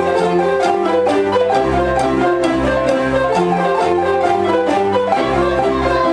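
A children's mallet-percussion ensemble of xylophones playing a busy repeating tune over low bass notes that change about once a second.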